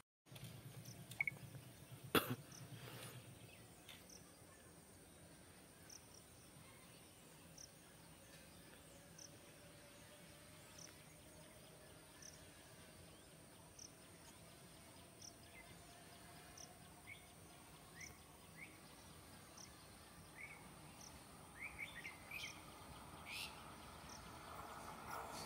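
Quiet outdoor ambience: a bird calls in short chirps about every second and a half, a little louder near the end, over a faint steady high insect hiss. A faint hum rises slowly in pitch through the second half.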